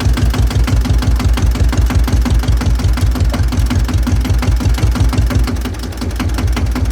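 1953 Fendt F12 HL tractor's single-cylinder diesel engine running while driving, a steady rapid chugging that eases off slightly near the end.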